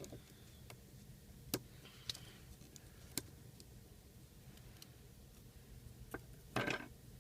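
Faint sharp clicks of tweezers and small parts during iPhone 4 disassembly, with a few single clicks a second or so apart and a short clattering rustle near the end.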